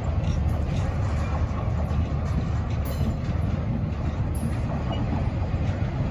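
Freight train cars rolling past on the rails, a steady, even noise of steel wheels on track.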